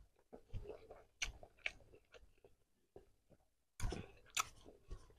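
A person chewing food close to the microphone, with several short, crisp crunches scattered through.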